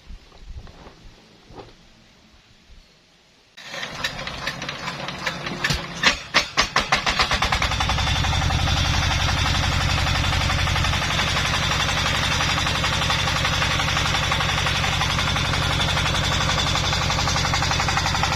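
A small petrol chainsaw engine starting: after a few faint knocks it sputters into life with a few loud uneven firing beats, then settles into a steady run.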